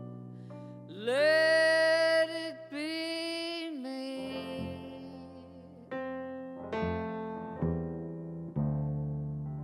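Slow closing bars of a live ballad: a woman's voice holds two long wordless notes, sliding up into the first, over keyboard and upright double bass. The keyboard then plays five slow, separate chords that ring and fade.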